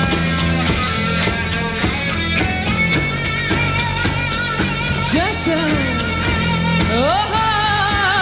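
A live rock band playing: drums keep a steady beat under electric guitars. The second half has long, wavering held notes and upward pitch slides.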